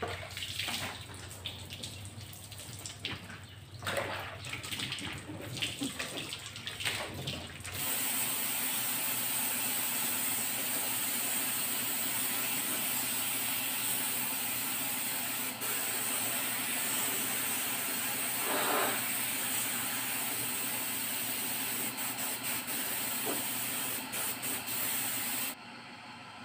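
Compressed-air paint spray gun hissing steadily as paint is sprayed onto a car bumper, starting suddenly about eight seconds in, with a few brief breaks near the end as the trigger is let off. Before it, several seconds of irregular rubbing and handling sounds.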